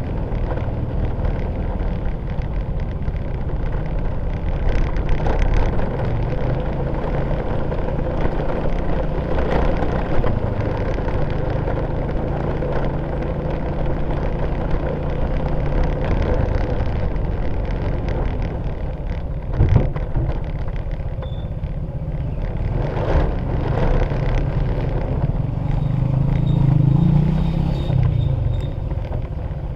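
Steady low rumble of a vehicle moving over brick paving and asphalt, with a few sharp knocks and a brief low hum that rises and falls near the end.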